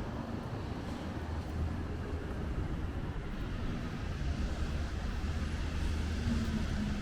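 Traffic on a rain-wet city street: a vehicle engine running with a steady low hum over a constant hiss of rain and tyres.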